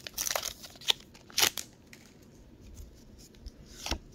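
Foil Pokémon booster pack wrapper being torn open and crinkled as the cards come out. There are a few sharp crinkles in the first second and a half, then quieter card handling, with one more short crackle near the end.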